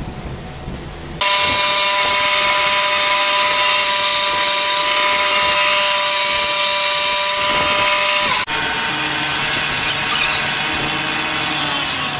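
Power tool running loudly with a steady high whine over a harsh hiss, starting suddenly about a second in. About eight seconds in it changes abruptly and carries on a little quieter with a different whine.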